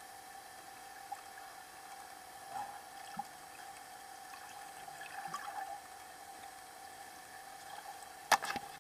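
Underwater ambience: a steady faint hum with scattered small clicks and brief bursts of water noise, and a sharp knock near the end.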